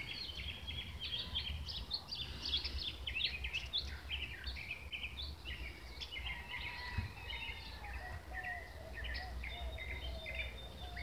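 Many birds chirping at once, a dense chorus of short high calls over a steady low rumble, with a faint wavering lower tone joining about six seconds in.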